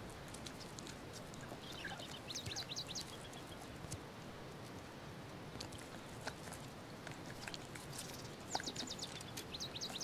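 Rock hyrax nibbling and chewing dry plant stems, faint small crunching clicks over a soft outdoor hiss. Two runs of high, rapid chirps come through, about two seconds in and again near the end.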